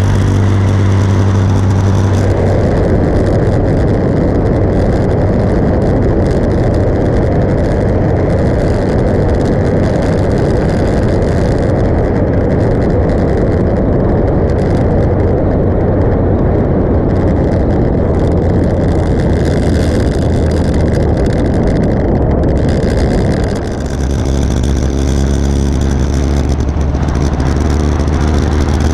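Motorcycle engine running at road speed under heavy wind rush over the microphone, the rush loudest for most of the stretch. Near the end the level dips briefly, and then the engine's steady low note comes through clearly again.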